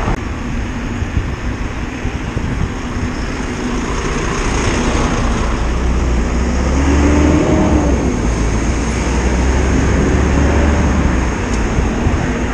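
Wind rumbling on a head-mounted camera's microphone while cycling along a busy road, with traffic including a double-decker bus close alongside. An engine tone rises and falls about seven seconds in.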